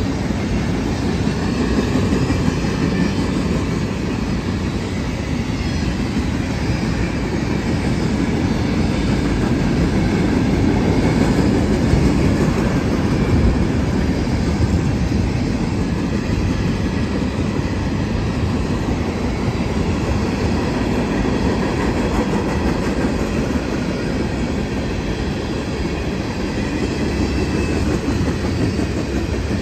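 Union Pacific freight train cars rolling steadily past close by: a continuous loud rumble of steel wheels running on the rails.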